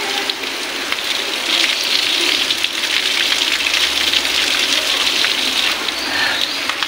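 Water streaming from the spouts of a stone wall fountain and splashing onto the wet stone paving, a steady hissing splatter that grows heavier for a few seconds in the middle while a man drinks and washes at one spout.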